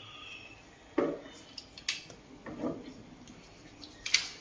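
Four short knocks and clinks of small hard objects being handled on a tabletop, roughly a second apart, the last the sharpest.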